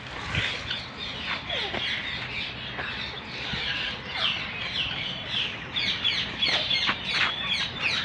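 A chorus of many small birds chirping at once, a steady stream of short, high chirps overlapping one another.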